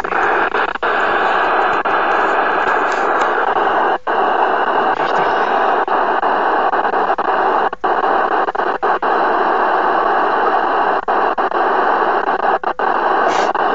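Cobra CB radio's speaker putting out a loud, steady rush of static from the received channel, broken by a few brief dropouts.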